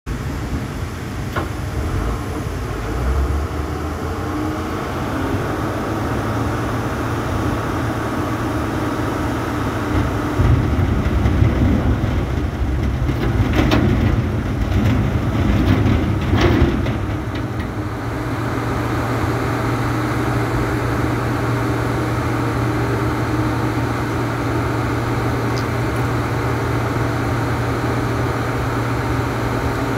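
Hino dump truck's diesel engine running steadily while its hydraulic hoist tips the loaded bed. For several seconds about a third of the way in it is louder and rougher, with a few sharp knocks, then settles to an even drone.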